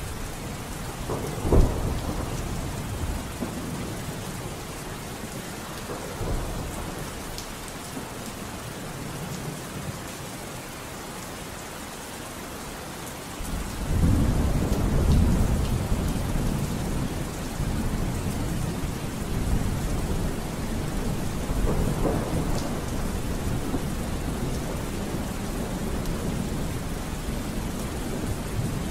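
Steady rain with thunder: a sharp clap about a second and a half in, and a long rolling rumble that swells about halfway through and slowly dies away.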